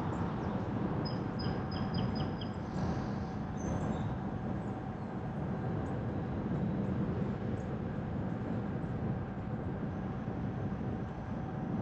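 Steady road noise of a car being driven: a low rumble of engine and tyres with hiss over it. About a second in, a quick run of five short high chirps or beeps.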